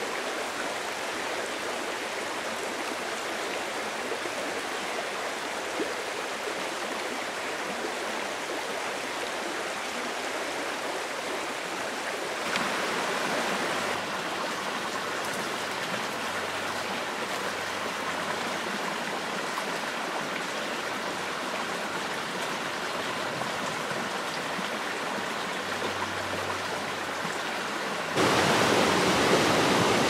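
Steady rush of a small mountain stream flowing over rocks. About two seconds before the end it jumps louder, with water spilling white over a log close by.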